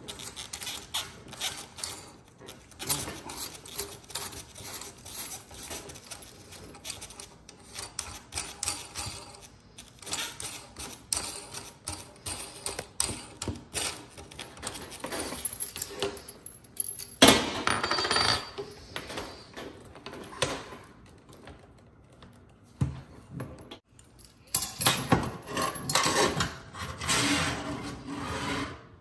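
Small metal clicks and rubbing as a part is turned by hand onto a kitchen faucet's threaded brass mounting shank. In the second half come louder handling scrapes and knocks as the faucet is fed down through the sink's mounting hole.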